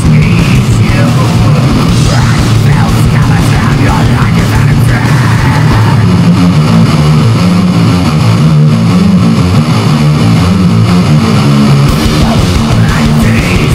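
Loud, distorted heavy-metal-style music with guitar, continuous and dense, with a heavy bass line.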